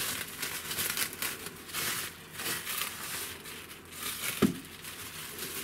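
Cling film crinkling and crackling irregularly as it is handled and peeled off a block of dough, with one sharp knock a little past the middle.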